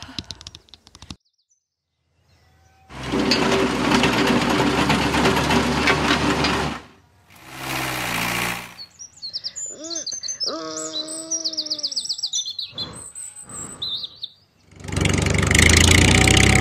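A run of cartoon sound effects. A wind gust dies away within the first second, a loud rushing noise follows for about four seconds, then birds chirp for several seconds, and near the end a fertiliser applicator rig passes with a loud mechanical noise.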